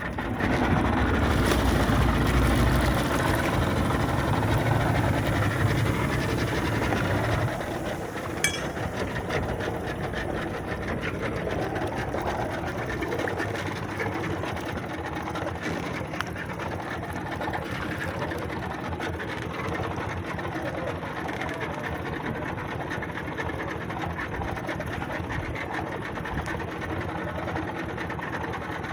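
Outboard motor of a small fishing boat running steadily. It is louder for the first seven seconds or so, then drops to a lower, even running sound.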